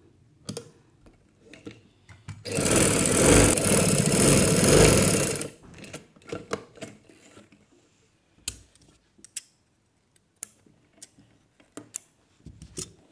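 Electric-motor domestic sewing machine running in one steady burst of about three seconds as it stitches a seam, followed by scattered light clicks and taps of the fabric and machine being handled.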